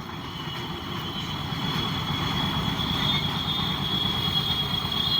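A motor running steadily with a high whine and a low rumble, getting louder about a second and a half in.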